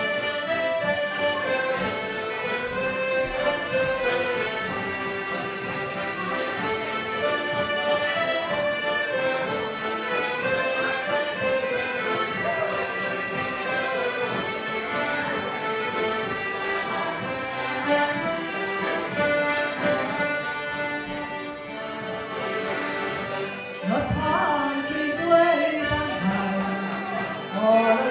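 Irish traditional dance music: button accordions and fiddles playing a lively tune together for set dancing. About four seconds before the end the band gives way to a woman's voice over a microphone.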